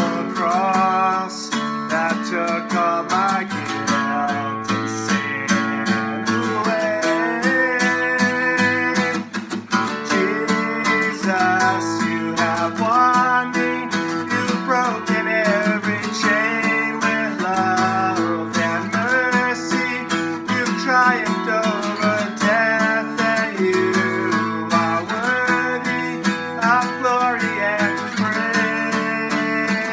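A man singing a worship song while strumming an acoustic guitar.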